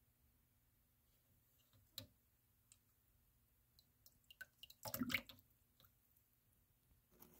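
Water dripping and briefly splashing in a small container: scattered small ticks and drips, with a short, louder splash about five seconds in.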